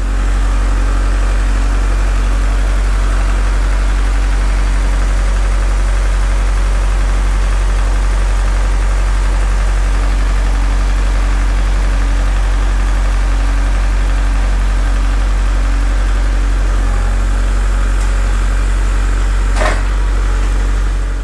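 Compact utility tractor's engine running steadily, with a deep even hum. A single short knock comes about a second and a half before the end.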